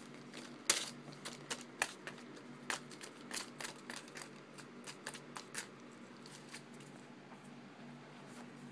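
A kitten's claws scrabbling and scratching at the inside of a lampshade: a quick flurry of sharp scratches and taps for the first few seconds, then dying down to a few light ones.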